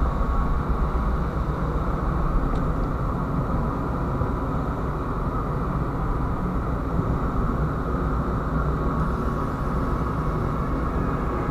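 Steady low rumble and wind buffeting the microphone on an open ship's deck at sea, with a faint steady hum underneath.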